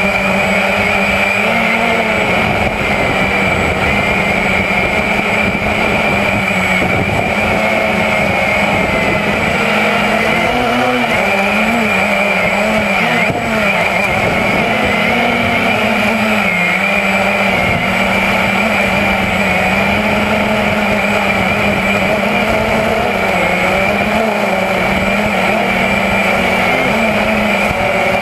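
Walkera QX350 quadcopter's electric motors and propellers buzzing steadily, picked up close by its onboard camera, with small wavers in pitch as it manoeuvres.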